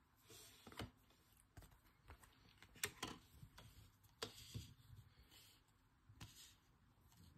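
Faint, irregular taps and soft slides of trading cards being set down and shuffled about on a desk, with the sharpest tap about three seconds in.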